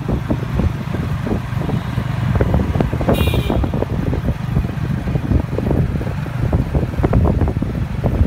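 Motorcycle-drawn tuk-tuk under way: the motorcycle's engine running with steady low rumble, mixed with road and wind noise and many short uneven knocks. A brief high-pitched tone sounds about three seconds in.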